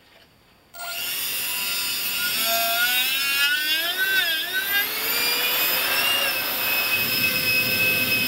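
Electric ducted fan with a brushless motor spun up under throttle on a dynamic-balancing test run: it starts suddenly about a second in, then a loud high whine of several tones over a rush of air, the pitch climbing, wavering up and down in the middle, then holding steady.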